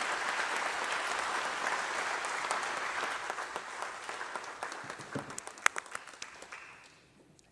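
Audience applauding at the close of a speech. The clapping thins out after a few seconds into a few last separate claps and fades away near the end.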